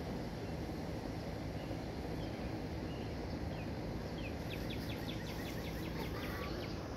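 Steady low outdoor background noise, with a few faint high chirps and, about four and a half seconds in, a two-second trill of rapid high ticks, about seven a second.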